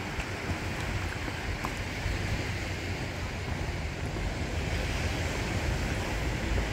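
Small waves washing onto a sandy beach, a steady surf hiss, with wind rumbling on the microphone.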